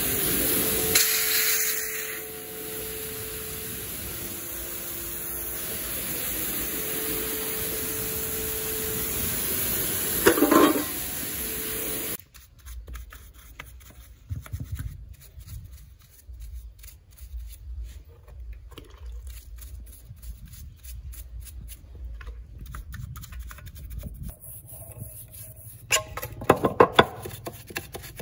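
Pressure washer spraying water onto engine parts, a steady hiss, cut off suddenly about twelve seconds in; then quieter scraping and scrubbing with a hand brush on the engine parts, with a few sharp knocks near the end.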